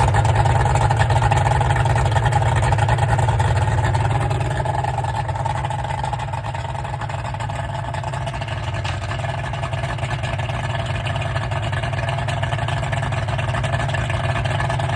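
Yamaha 225 outboard motor running steadily at idle in a test bucket of water, on its first start with a newly coned lower unit. It settles a little quieter about five seconds in.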